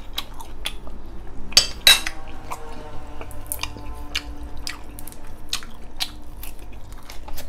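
Eating sounds: a fork clinking against a plate, with two sharper clinks about two seconds in, among many small mouth clicks and smacks from chewing braised pork ribs and fresh coriander.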